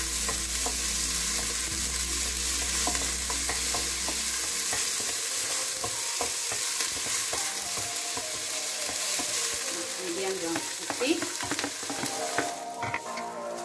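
Chopped shallots sizzling as they fry in oil in a stainless steel pot, stirred with a wooden spoon that scrapes and taps against the pot. Near the end the sizzle eases as minced garlic is tipped in.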